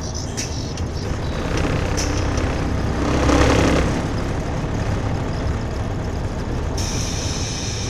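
Steady road and engine noise inside a moving vehicle's cab at highway speed, swelling louder for about a second around three seconds in, with a brighter hiss coming in near the end.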